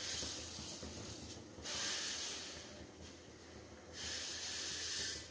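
Roasted vermicelli poured from a steel plate into a pan of boiling spiced water: a hissing rush that comes in spells, swelling about a second and a half in and again about four seconds in.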